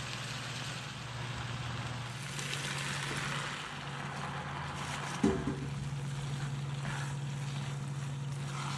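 Stir-fry sizzling in a pan of vegetables and glass noodles: a steady hiss over a low hum, with a single sharp knock about five seconds in.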